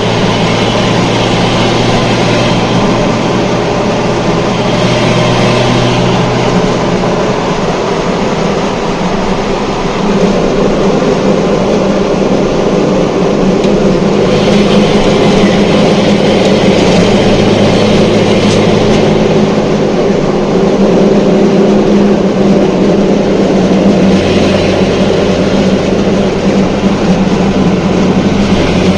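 Datsun 240Z's 2.4-litre straight-six engine and exhaust heard from inside the car while cruising in fifth gear, with road noise. The engine note shifts about seven seconds in and grows louder about ten seconds in.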